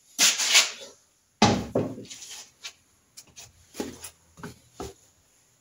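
Workshop handling noises: a brief loud scrape or rustle, then a heavy thud with a short rattle about a second and a half in, followed by a few light knocks.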